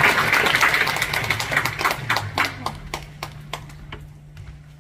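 Audience applause dying away, thinning out into a few scattered claps that fade almost to nothing by the end.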